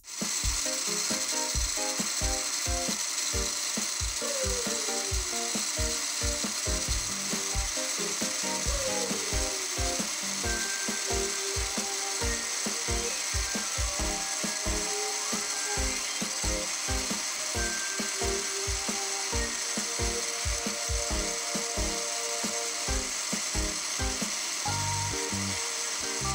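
Small electric blender's dry-mill grinder jar running steadily, grinding dried garlic flakes into fine powder; it switches on at the very start.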